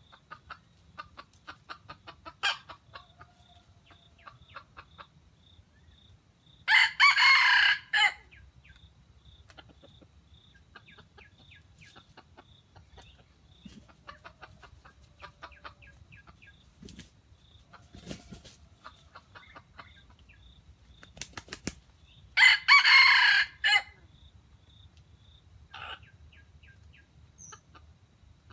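Red junglefowl rooster crowing twice, short crows of just over a second each, the first about seven seconds in and the second about twenty-two seconds in, with faint clucking from the flock in between.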